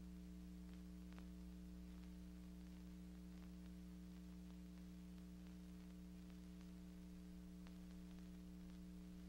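Near silence: a steady low hum with a few faint scattered clicks.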